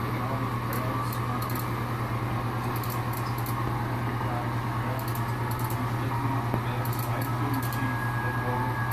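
HO-scale model freight train rolling along the track: small metal wheels ticking over rail joints in quick clusters of three or four, over a steady low hum.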